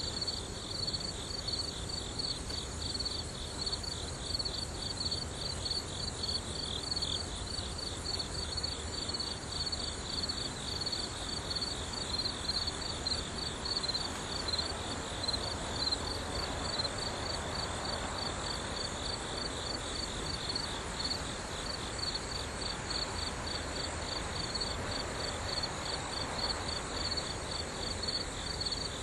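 Insects chirping in a fast, steady, high-pitched pulsing trill over a soft, even background noise.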